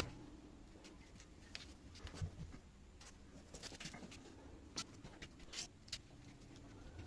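Faint, irregular small clicks and taps, a few a second at most, over a low background hum.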